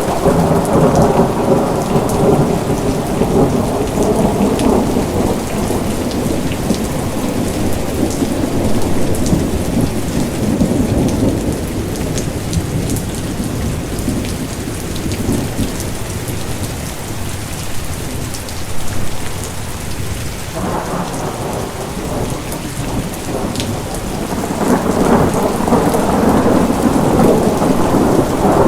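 Steady rain falling with rolling thunder: a low rumble that is strong at first, eases through the middle and swells up again about two-thirds of the way in.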